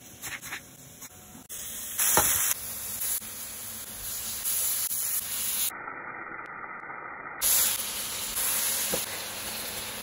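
Masala of onions, tomatoes and green chillies sizzling in a hot pan as it is stirred, a steady frying hiss with a few sharp clicks of the spoon. The hiss changes level abruptly several times where short clips are joined.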